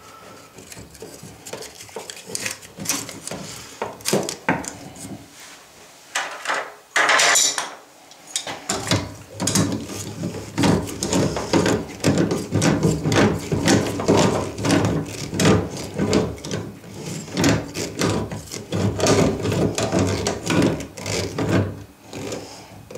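A wrench working a quarter-turn washer valve onto its threaded pipe, with repeated metal scrapes and clicks; quiet and sparse at first, then denser and louder from about nine seconds in.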